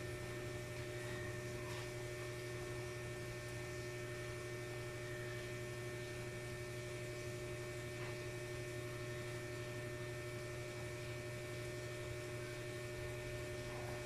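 Steady electrical hum with a few faint, higher steady tones over it: room tone.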